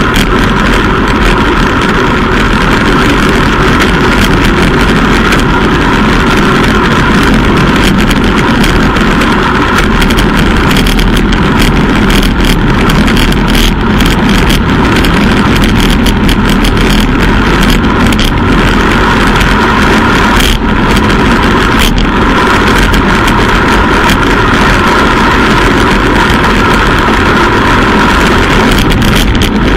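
Loud, steady wind rushing over the microphone of a bike-mounted camera on a road bike at about 50 km/h, mixed with tyre and road noise, with a few short clicks.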